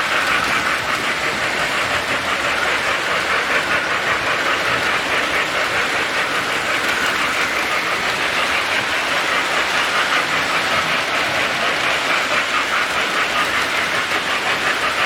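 Model train running on the layout's track: a steady rolling clatter of wheels on rails.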